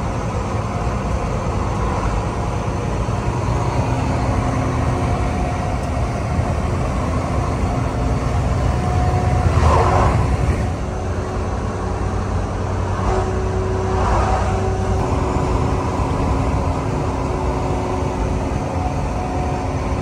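Steady rumble of a vehicle on the move, engine and road noise, with a brief louder swell about halfway through.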